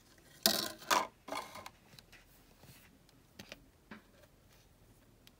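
Handling noises as a towel-covered container is uncovered and opened: a few short, loud rustles in the first second and a half, then a few light clicks.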